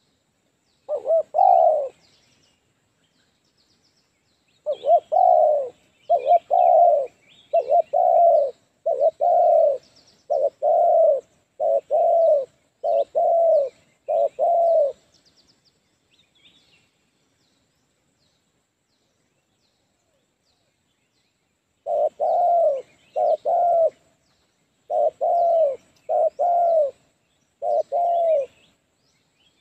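Spotted dove cooing: repeated low, falling coos, one short phrase about a second in, then a long run of phrases, a pause of several seconds, and another run near the end. Faint high chirps of small birds sound in the background.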